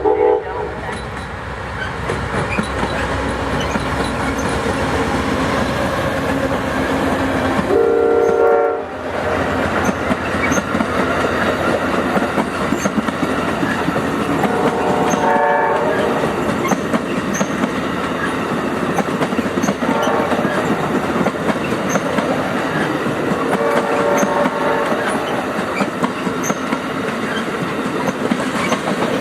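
Amtrak passenger train rolling by at slow speed, wheels clicking over the rail joints, while the GE P42DC locomotive's air horn sounds several blasts, the loudest about eight seconds in.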